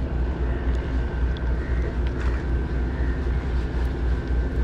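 A steady, distant engine drone with a low rumble underneath, unchanging throughout.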